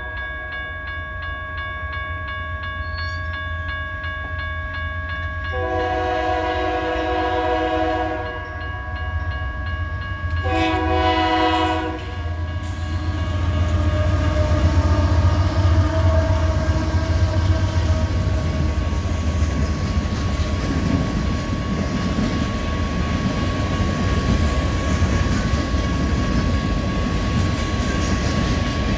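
Union Pacific rock train's diesel locomotives sounding the horn in two blasts, a longer one about five seconds in and a shorter one near ten seconds, over a steady low rumble. From about thirteen seconds on the rumble grows louder as the train rolls past with wheel clatter on the rails.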